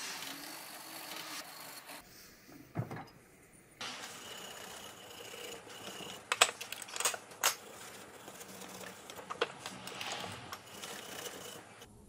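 A chromed bicycle headset part clamped in a steel bench vise being scrubbed clean by hand with wire wool: scratchy rubbing strokes that pause briefly after about two seconds, then resume, with a few sharp metallic clicks around the middle.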